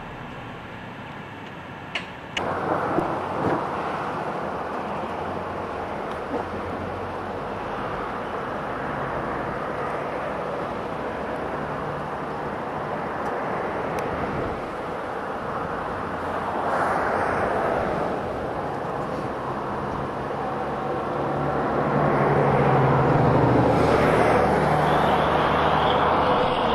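Road traffic noise heard from a vehicle parked beside a highway, with a click about two seconds in after which the outside noise gets louder. Near the end a tractor-trailer approaches and passes, its engine and tyres growing louder.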